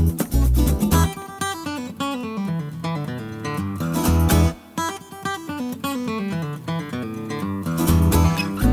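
Background music: an acoustic guitar picking a melody of quick single notes. The deep bass drops out about a second in and comes back near the end.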